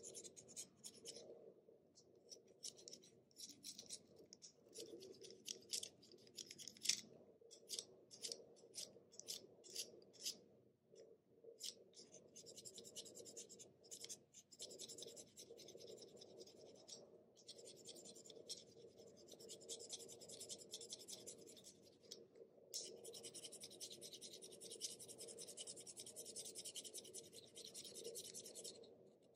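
Utility knife blade shaving a Faber-Castell 9000 HB pencil by hand: a run of short, separate scraping strokes as the wood is pared, becoming closer-spaced, steadier scraping in the second half as the blade works the graphite point.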